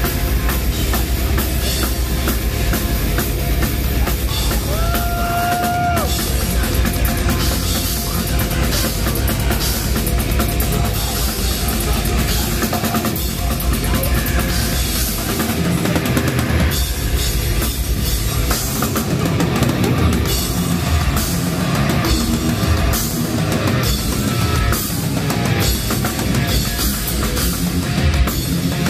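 Live heavy metal band playing at full volume: fast, dense drumming with heavy bass drum under distorted guitars, with the vocalist screaming into the microphone. A short high held note rings out about five seconds in.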